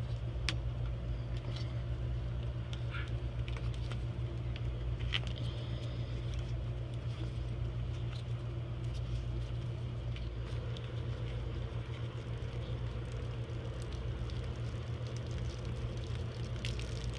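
Steady low hum with faint, scattered clicks and rustles over it.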